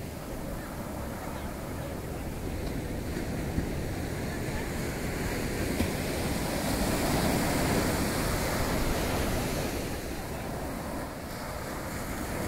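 Sea surf washing up the beach, swelling to its loudest about seven seconds in and easing again, with wind buffeting the microphone.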